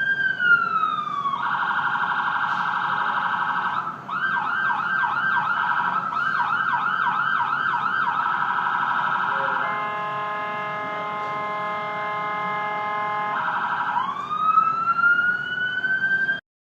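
Ambulance electronic siren cycling through its tones. It starts with a slow wail falling in pitch, switches to a fast warble, then to quick repeating yelps at about two or three sweeps a second, then to a steady multi-note tone for a few seconds. It ends on a rising wail that cuts off suddenly near the end.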